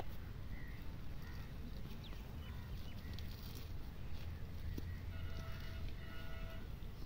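Open-air field ambience: a steady low wind rumble with faint distant bird calls, including a longer repeated call about five seconds in. A single sharp click sounds right at the start.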